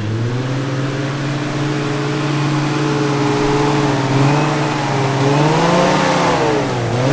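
Four-wheel-drive's engine pulling under load on an off-road track, its pitch climbing slowly, then rising further and dropping sharply near the end before picking up again.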